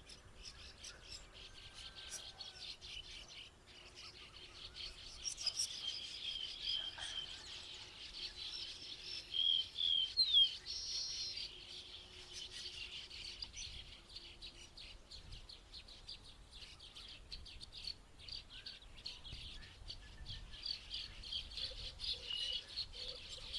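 Many small birds chirping together in a dense, continuous chorus of short high calls, with a few louder calls about halfway through.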